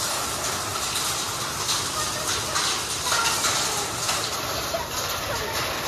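Heavy rain mixed with hail pelting a concrete courtyard floor and roof, a steady dense patter of countless small hits.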